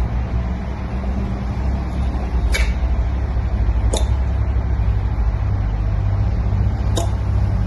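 Three sharp, separate clicks, the first about two and a half seconds in, the next a second and a half later and the last three seconds after that, made to catch a cat's attention, over a steady low rumble.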